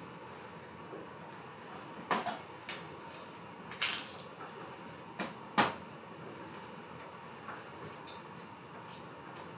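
Bar tools clinking and knocking against a copper mug and the bar counter as a cocktail is built: about five short sharp clinks with a brief ring, the loudest near the end of the run.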